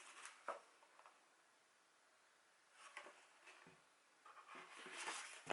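Faint paper rustling and a few soft taps from handling the pages of an album's photo book, with a longer rustle about four seconds in as a page is turned.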